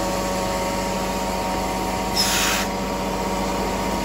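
Steady hum of a running machine, with a short hiss about two seconds in.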